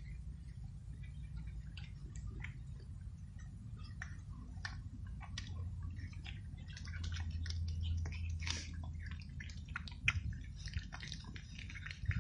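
Two cats chewing and licking up cat food in gravy, a run of small, irregular wet clicks over a low rumble.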